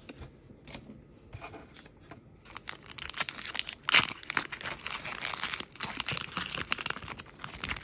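Foil wrapper of a trading-card booster pack being torn open and crinkled by hand. After a quieter start with a few faint clicks, dense crackling and tearing begins about two and a half seconds in and is loudest about four seconds in.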